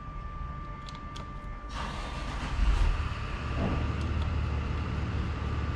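A couple of faint clicks from a Phillips screwdriver turning a mass airflow sensor screw, then, about a second and a half in, a steady low mechanical rumble with a hiss starts up, swells briefly and keeps running.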